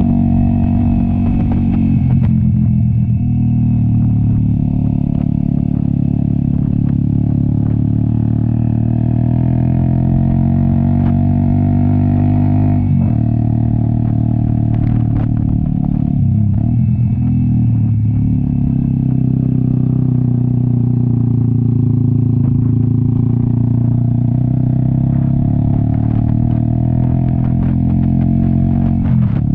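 Cafe 400 motorcycle with an SC Project aftermarket exhaust running under load on a climb. The exhaust note holds steady, then drops briefly and picks up again a few times: about two seconds in, twice around the middle, and near the end, as at gear changes or a throttle lift.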